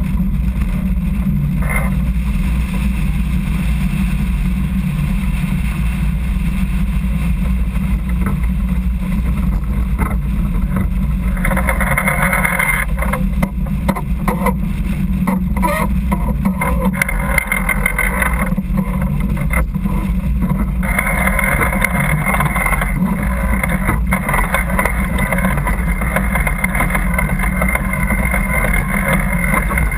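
Water rushing and splashing along the hull of a sailboat heeled under sail, over a steady low rumble of wind on the microphone. The splashing hiss swells in stretches from about twelve seconds in and stays up through the last third.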